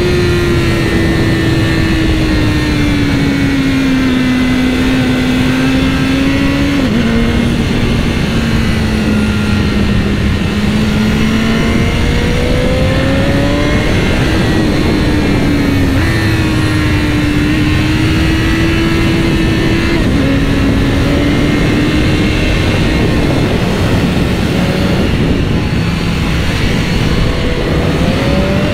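BMW S1000R inline-four motorcycle engine under way, its pitch rising and falling with the throttle and stepping abruptly down or up at a few gear changes, under a steady rush of wind and road noise on the camera's microphone.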